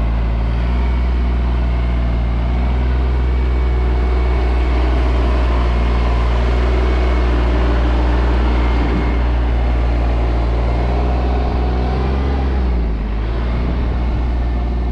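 Compact tractor's engine running steadily as it drives slowly, a low even drone that eases off slightly near the end.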